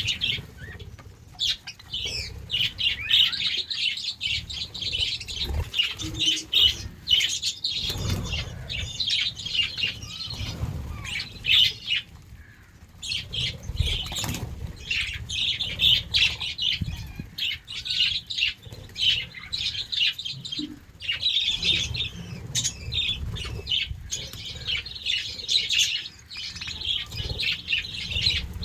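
A flock of budgerigars chirping and chattering almost without pause, in quick overlapping calls, with scattered low thumps.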